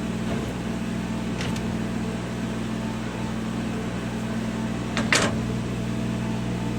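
CO2 laser engraver running mid-way through a glass-etching job: a steady machine hum with low tones. There is a faint click about a second and a half in, and a sharper, louder click just after five seconds.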